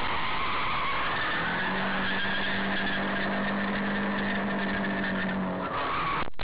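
A car driving: steady road and engine noise, with a steady hum from about a second and a half in until shortly before the end.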